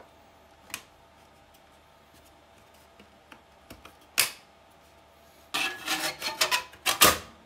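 Metal case of a C1-94 oscilloscope being handled and slid back over its chassis. A light click comes just under a second in and a sharp knock a little past four seconds, then a run of metal scraping and knocking near the end, loudest just before it stops.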